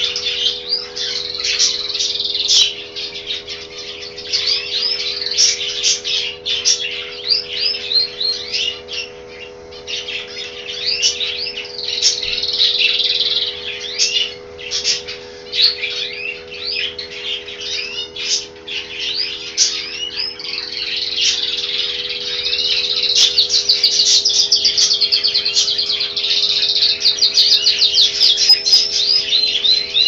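A flock of aviary finches chirping and twittering nonstop, many quick calls and short trills overlapping, busier and louder over the last third.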